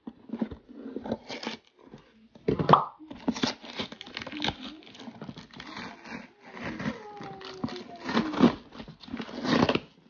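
Packing tape and cardboard of a shipping box being cut and torn open by hand: a run of irregular ripping and crinkling noises, with the loudest rips about two and a half seconds in and again later on.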